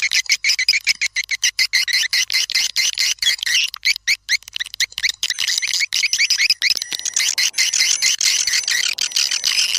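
Swiftlet lure recording: dense, rapid, high twittering chirps from many swiftlets overlapping, with sharp clicks running through it. It is the calling sound played to draw swiftlets into a nesting house.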